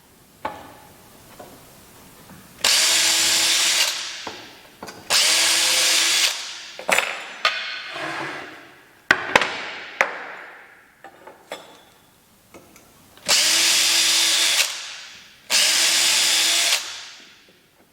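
Power drill run in short bursts, four main runs of about a second and a half, each winding down after the trigger is let go. A few sharp clicks and knocks come between the runs.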